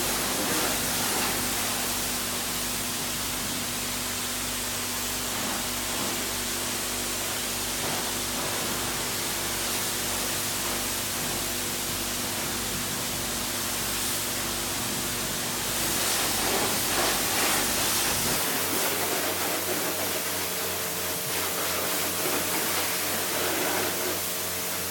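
Pressure washer jet spraying water onto a pickup truck's hood and grille: a steady loud hiss, with a steady hum underneath that changes pitch about two-thirds of the way in.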